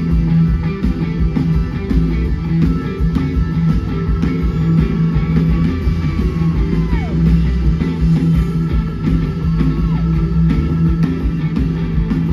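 Live blues-rock band playing loud: electric guitar over bass and drums, heard from the crowd. A long held note slides down in pitch about seven seconds in, and again near ten seconds.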